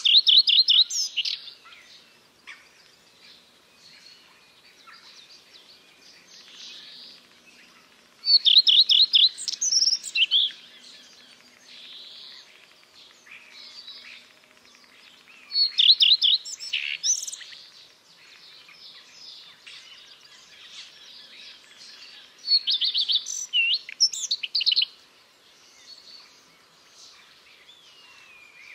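Common redstart singing: four short song phrases about seven seconds apart, each a quick run of repeated high notes followed by a varied twitter.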